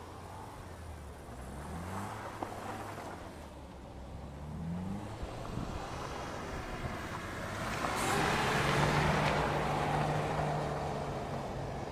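BMW car drifting on a snowy, icy lot: the engine revs up twice, then the car passes close by at steady high revs with a loud hiss of spinning tyres and thrown snow, which peaks about nine seconds in and fades.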